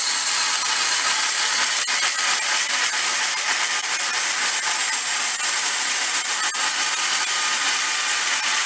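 Carbide-tipped blade on a belt-driven wood table saw, slowed to half speed, cutting through steel plate: a steady, dense, high-pitched hiss.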